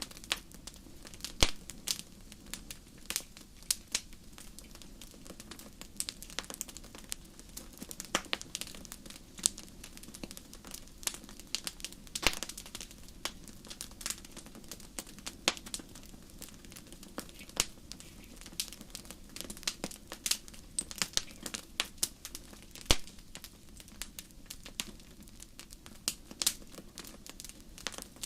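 Fire crackling: irregular sharp snaps and pops, several a second, over a steady low rumble.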